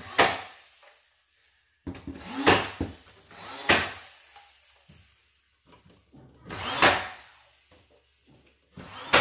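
DeWalt cordless nailer firing nails into cedar wall boards: about five sharp shots, one every one to three seconds. Some shots come after a brief whir as the tool's motor spins up.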